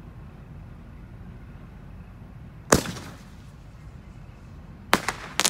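Consumer firework shell: a sharp launch bang, then about two seconds later a second bang as it bursts, running straight into a quick string of crackling pops.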